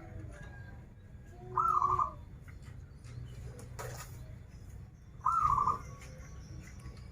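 Zebra dove cooing: two short trilling coos about three and a half seconds apart, over a steady low hum.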